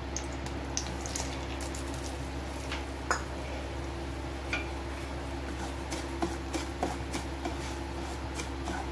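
Semolina being stirred and roasted in ghee in a pan with a spatula: scattered light scrapes and clicks of the spatula on the pan, with one sharper click about three seconds in, over a steady low hum.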